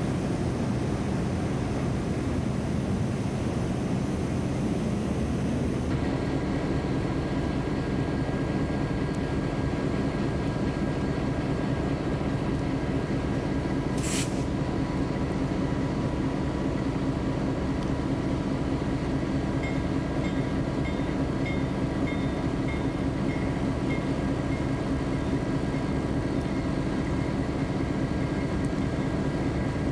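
Diesel switcher locomotive running steadily at close range, a constant engine rumble with a steady hum over it, recorded through a camcorder's hiss.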